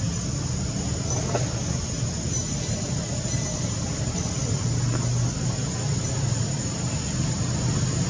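Steady low rumble of a motor vehicle engine running, with a thin, high, steady whine above it.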